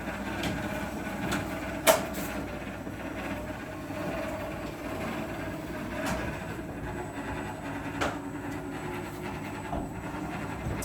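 A motorized steel rolling gate running, its slats clattering steadily, with a sharp metal clank about two seconds in.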